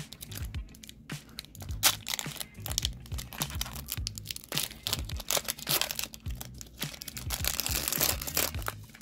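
Foil hockey card pack crinkling and tearing as it is pulled open by hand: many sharp crackles, with a loud snap about two seconds in and the densest crinkling near the end as the wrapper comes apart. Background music with a steady beat plays underneath.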